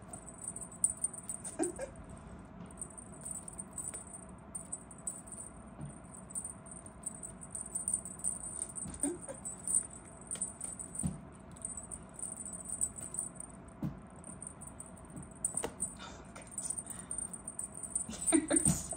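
A small jingle bell on a cat's wand toy jingling on and off as the wand is waved and a kitten bats at it, with soft scattered taps of paws and toy on the floor.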